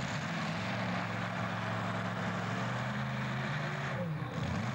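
Modified pulling tractor's engine idling steadily before a pull, its pitch dipping briefly about four seconds in.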